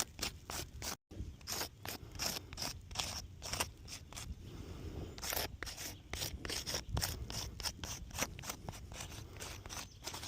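Asphalt shingles scraping and rubbing in quick repeated gritty strokes, about three or four a second, with a brief dropout about a second in.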